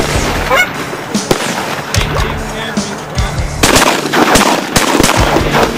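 Several shotgun shots fired at Canada geese coming into decoys, the heaviest group a little over halfway.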